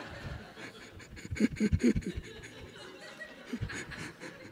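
Laughter after a joke: a room laughing softly, with short breathy chuckles close to the microphone about a second in.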